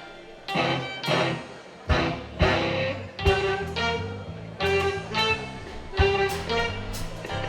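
Instrumental jazz-fusion music with guitar, a bass line and sharp drum hits.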